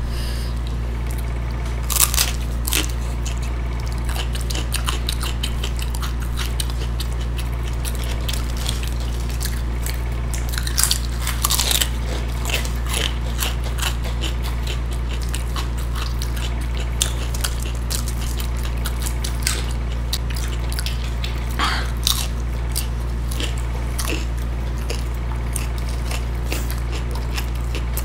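Close-miked chewing and crunchy biting of fried sabudana tikki (sago-pearl patties), with scattered crackly bites, the loudest about two seconds in and again around eleven to twelve seconds in, over a steady low hum.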